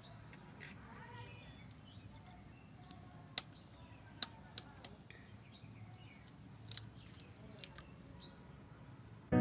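Knife blade tapping and cracking hen's eggshells over a small steel bowl, a few sharp clicks a few seconds in. Faint birds chirp in the background.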